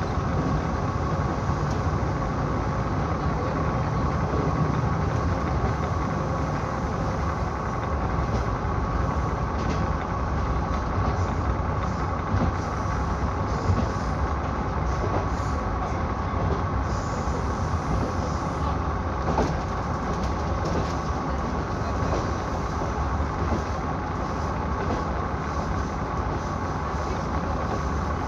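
KiHa 66 series diesel railcar running at speed, heard from inside the car: a steady rumble of engine and wheels on rail with a steady whine over it. A few short knocks sound in the middle.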